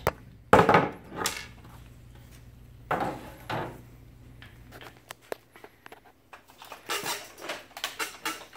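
Plastic HP laser printer covers and metal chassis knocking and clattering as they are handled: a few loud knocks in the first seconds, then a run of quicker clicks and rattles near the end.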